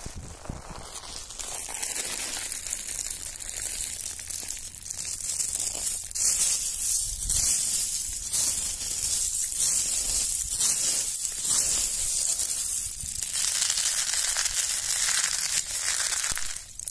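A bank of dry freshwater mussel shells crunching and rattling continuously as they are stepped on and grabbed and squeezed by the handful.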